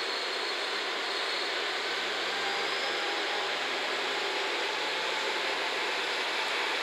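JNR KiHa 47 diesel railcar running slowly through the station, a steady rushing engine and running noise that grows slightly louder.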